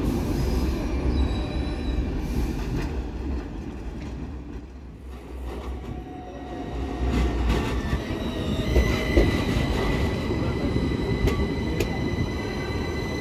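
An ASEA/MGB M31 tram runs past on street track. After a cut, an AnsaldoBreda Sirio low-floor tram moves along the platform, and a steady high-pitched wheel squeal sets in about two-thirds of the way through over its running noise.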